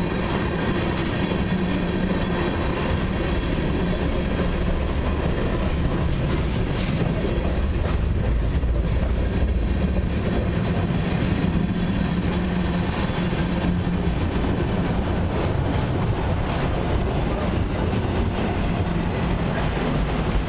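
A long freight train of mixed cars and autoracks rolling steadily past, its steel wheels running on the rails with some clicking over the rail joints.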